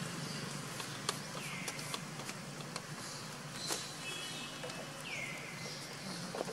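Outdoor ambience with a steady low hum. Twice an animal gives a short call that drops in pitch and then levels off, about three and a half seconds apart, with a few faint clicks between.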